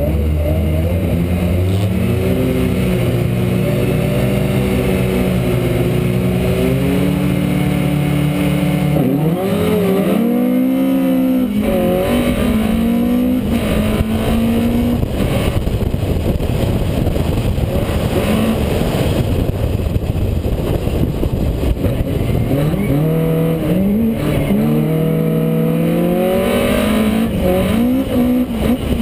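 Rallycross car's engine heard from onboard, loud throughout. For about nine seconds it is held at steady revs, then the car pulls away hard, with revs rising and dropping through gear changes. A rougher, noisier stretch of hard running follows, with more gear changes near the end.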